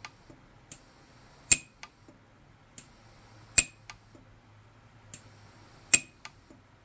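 Orion 150s pulse-arc micro TIG welder firing three weld pulses about two seconds apart, each a sharp snap preceded by a fainter click, as platinum filler wire is fused into the seam of a platinum ring to build it up.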